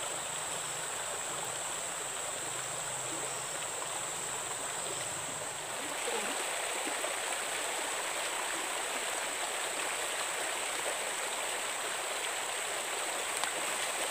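Shallow creek water flowing over a sandy, stony bed, a steady rush with no pauses. It grows slightly louder about six seconds in.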